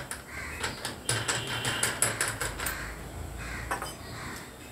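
Metal dumbbell parts clinking and knocking together as a weight plate and its guard are handled and fitted onto a dumbbell rod, in a run of irregular small clanks.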